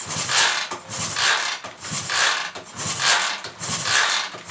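A 1977 Triumph T140V Bonneville's parallel-twin engine being turned over on the kickstart with the spark plugs out, in repeated mechanical strokes about twice a second. It is turning over without firing, to circulate oil and prime the oil pump after a top-end rebuild.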